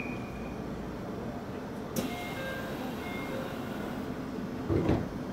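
A stationary Aichi Loop Railway 2000 series electric train hums steadily at the platform while it waits to depart. A sharp click comes about two seconds in, followed by a few short faint tones, and a short low thump comes near the end.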